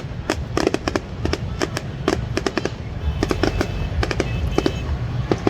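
Fireworks going off: many sharp bangs and cracks in quick, irregular succession over a steady low rumble.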